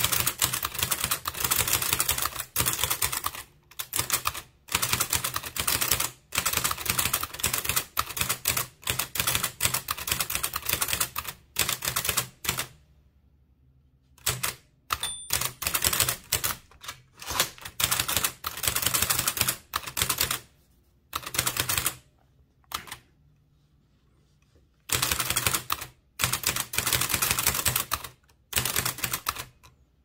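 A 1914 Blickensderfer Aluminum Featherweight typewriter being typed on at speed: quick runs of key strokes as its single type cylinder turns and strikes each letter. The runs break off for a second or two twice, and a short high ring sounds about fifteen seconds in.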